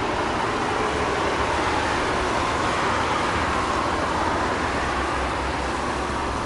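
Steady outdoor rushing noise with a low rumble underneath, even throughout.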